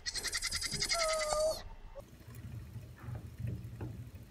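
A goat kid bleating once with a high, quavering cry that lasts about a second and a half. Only a faint low rumbling follows.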